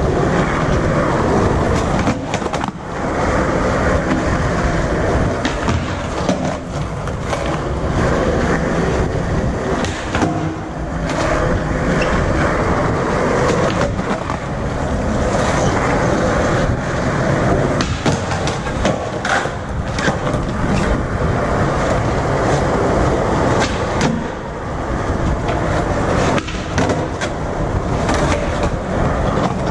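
Skateboard wheels rolling steadily over smooth concrete. Sharp wooden clacks of the board, from pops and landings, come every few seconds.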